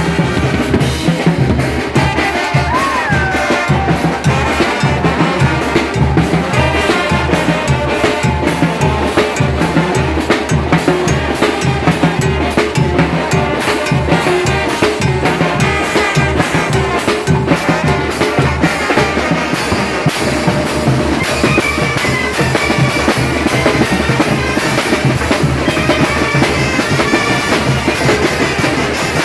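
A Mixtec village banda, a wind band with bass drum, snare and cymbals, playing dance music with a steady drum beat.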